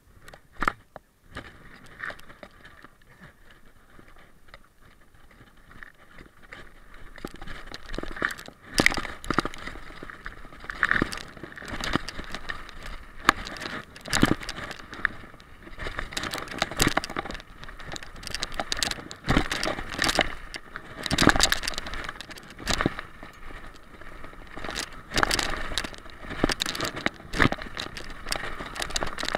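Mountain bike riding down a dirt downhill trail: tyres running over the ground and the bike clattering over bumps, with frequent sharp knocks. It starts quiet and gets much louder about eight seconds in as the bike picks up speed.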